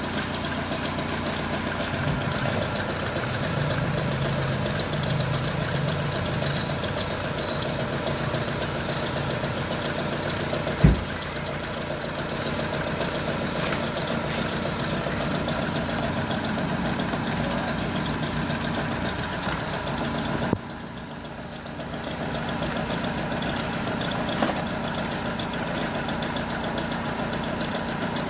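Honda Civic FD four-cylinder engine idling unevenly with a misfire, which the mechanic puts down to a failing ignition coil. One sharp click is heard about eleven seconds in, and the engine sound dips briefly about two-thirds of the way through.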